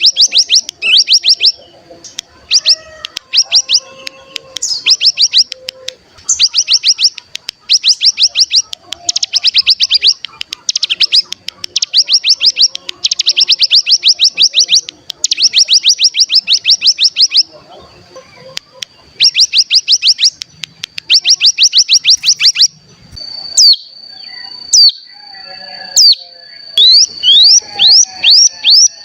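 Ciblek gunung (cigun) singing its rapid 'bren' trill: runs of fast, evenly repeated high notes, each run about a second long with short breaks between, over a thin steady high whistle. Near the end the trills give way to single sharp falling chirps, then a quicker string of them.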